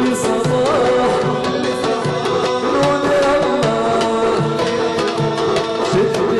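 Egyptian folk music: a held melody over a drum beating a steady rhythm of about two strokes a second.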